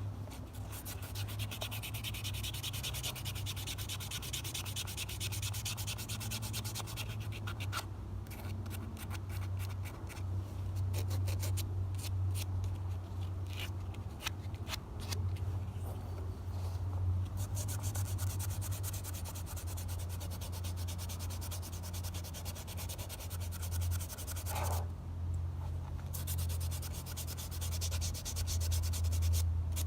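Sanding an old sickle by hand: quick, continuous back-and-forth rubbing strokes. The strokes pause briefly twice, about eight seconds in and again near twenty-five seconds.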